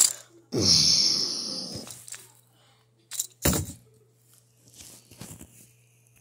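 Wooden toy trains derailing and tipping over: a sharp clack, then a loud hiss that fades away over about a second and a half, and two more wooden knocks about three seconds in.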